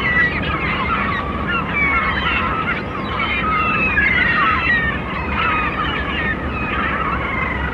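A flock of seagulls calling over the sea: many overlapping short cries, over a steady low rumble of wind and surf.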